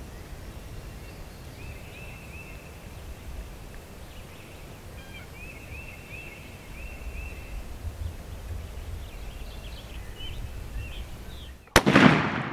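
A single loud shotgun blast near the end, fired at a wild turkey gobbler. Before it there are faint, repeated bird chirps over a low background rumble.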